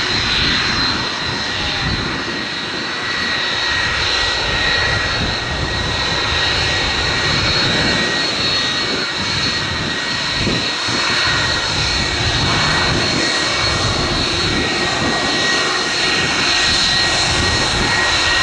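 Rolls-Royce RB211 turbofans of an Icelandair Boeing 757-200 at taxi power: a steady jet whine with two high held tones over a constant rushing noise.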